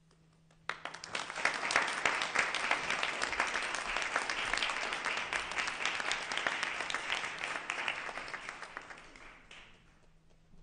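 Audience applauding: the clapping starts suddenly about a second in, holds steady, then dies away near the end.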